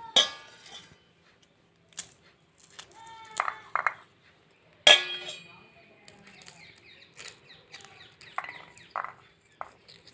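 Metal cooking utensils knocking and clinking, with one loud clang about five seconds in that rings briefly. Short pitched calls come in between.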